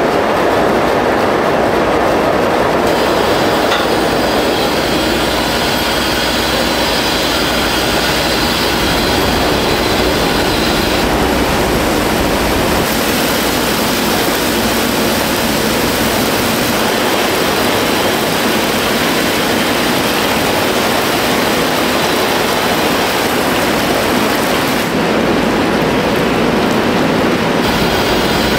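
Large industrial batch fryer running: hot oil sizzling and bubbling around snack cracker pieces as its rotating stirring arms turn them, over a steady machine rumble. The high hiss drops and returns a few times.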